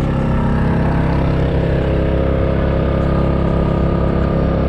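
Generator engine running steadily to power the truck's air conditioning, a constant even drone.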